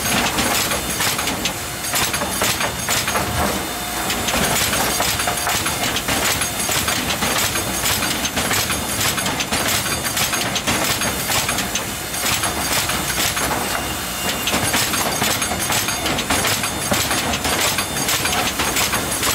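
Turbo 505 Silver Edition tandem pallet nailing machine running: a steady, dense clatter of many quick knocks as its nailing heads drive nails into the wooden pallet boards.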